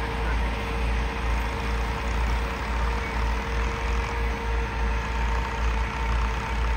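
Massey Ferguson 385 tractor's diesel engine running steadily under load while it drives a 78-blade rotavator tilling the soil, with a steady whine running through the low rumble.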